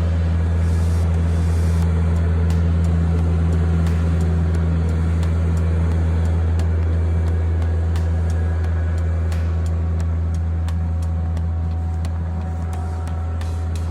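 An engine running steadily at one constant low pitch, with light clicks and knocks over it.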